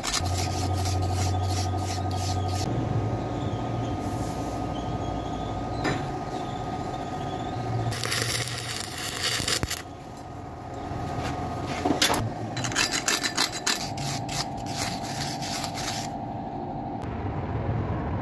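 Metal scraping and brushing at weld spots in a truck rear-wheel hub's bearing seat, in several spells of rapid rasping strokes, alternating with the crackling hiss of arc welding as the worn seat is built up with weld beads. A steady electric hum runs underneath.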